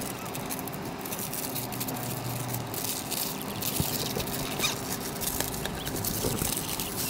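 Plastic wrapper on a toy tube crinkling and crackling as it is peeled and torn off by hand, with many small irregular crackles throughout.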